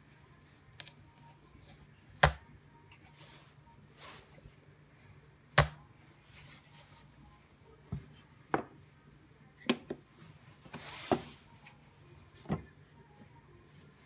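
Sharp snaps of a foldable rigid cardboard box's panels and magnetic closure clicking into place as the box is set up and its lid shut: about eight separate clicks, the two loudest about two and five and a half seconds in, with a short rustle near eleven seconds.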